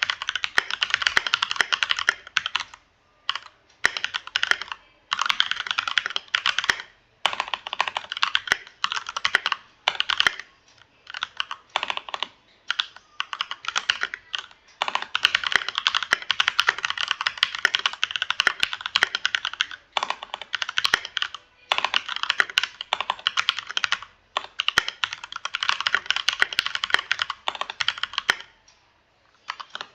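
Fast typing on a Keychron K2 V2 mechanical keyboard: rapid runs of key clicks lasting a second to several seconds, broken by about ten short pauses.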